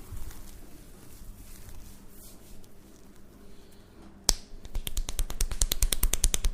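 Barber's hands on a person's head during a massage: faint rubbing at first, then a sharp snap about four seconds in, followed by fast, even tapping strikes, about seven or eight a second, which keep going.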